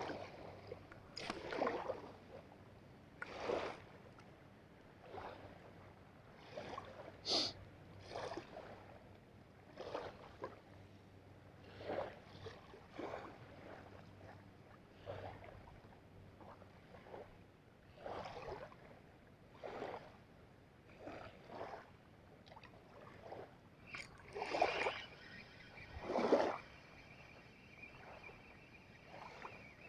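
Small waves lapping and splashing softly at the water's edge of a stony shore, in uneven wavelets every second or two, a couple of them louder.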